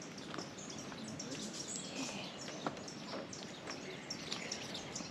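Several small birds chirping and calling, many short high chirps overlapping, over faint rainforest background noise.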